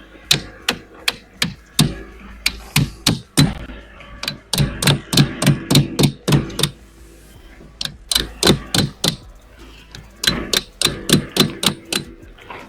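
Ice being chiselled off a boat deck: runs of sharp strikes, about three a second, broken by short pauses.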